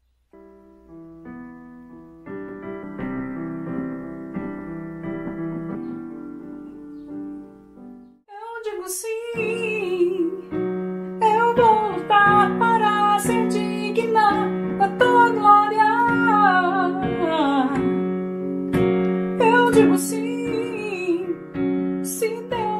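Digital piano playing chords. About eight seconds in, a woman's singing voice joins over the piano and carries a melody to the end.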